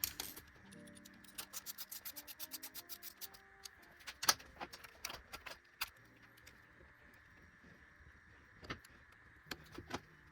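Background music, with a ratchet wrench clicking rapidly for the first few seconds as a bolt is turned, then a few separate knocks of tools or parts.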